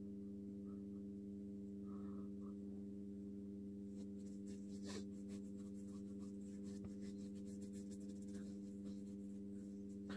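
A steady low hum with several even tones, with faint rustling and light clicks from about four seconds in.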